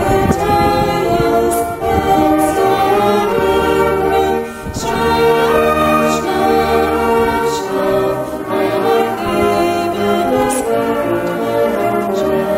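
Miners' wind band of saxophones and brass, tuba included, playing a slow tune in long held chords.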